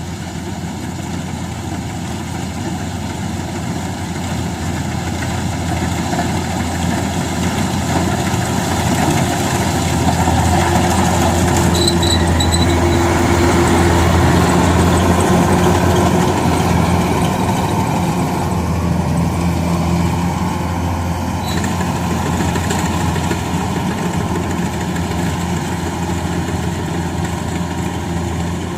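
Rice combine harvester's engine running steadily under load, growing louder toward the middle and then easing slightly. A brief high tone sounds about twelve seconds in.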